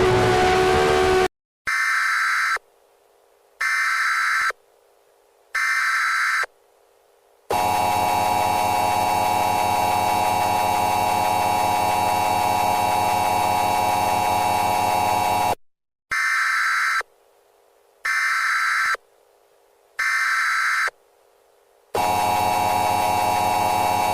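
Emergency Alert System alarm: three one-second bursts of SAME digital data header, then a loud buzzing attention tone lasting about eight seconds. Three more data bursts follow, and the buzzing tone starts again near the end.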